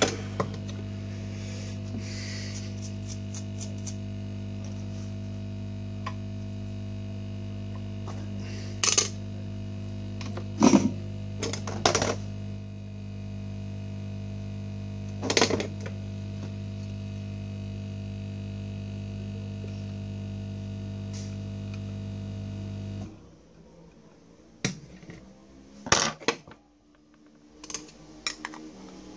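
Steady electrical mains hum with several overtones, which cuts off suddenly about 23 seconds in. Occasional sharp clicks and taps from hand tools on the circuit board and a small metal flux tin.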